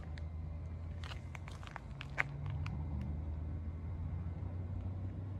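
A steady low mechanical hum, like a motor running, which steps up slightly in pitch about two and a half seconds in. Footsteps on the concrete sidewalk click over it, mostly in the first half.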